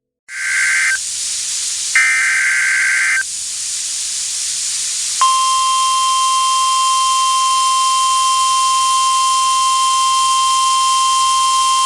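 NOAA Weather Radio alert heard over steady radio static hiss: two short bursts of buzzy SAME header data tones, then about five seconds in the steady 1050 Hz weather radio warning alarm tone starts and holds, signalling a severe weather alert.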